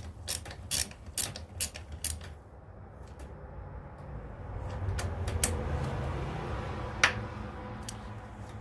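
Hand ratchet clicking in quick back-and-forth strokes, about two to three clicks a second, as it turns a tap cutting threads into an engine's unthreaded mounting bolt holes. The clicking stops after about two seconds, giving way to low handling noise with a few scattered clicks and one sharp click about seven seconds in.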